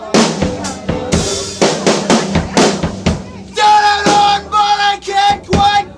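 Live band music led by a drum kit: rapid bass drum and snare hits. About halfway in, a sustained melodic line comes in over the drums.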